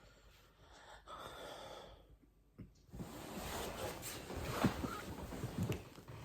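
A person with bad hiccups, breathing noisily, with several short sharp hiccups, the loudest in the second half.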